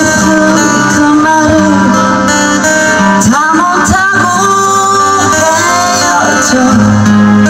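Live band music: a woman sings into a handheld microphone, her voice gliding between notes, over the band's instrumental accompaniment.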